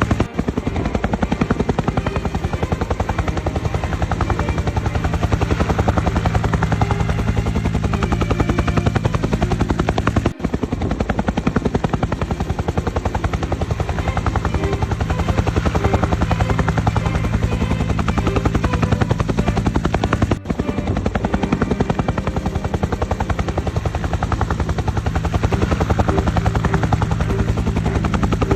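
Helicopter rotor blades chopping at a fast, steady beat over a steady turbine drone. The sound dips out briefly about every ten seconds.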